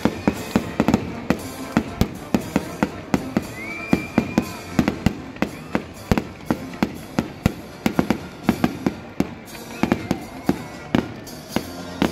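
Fireworks display: aerial shells bursting in quick succession, a continuous run of sharp bangs, two to three a second.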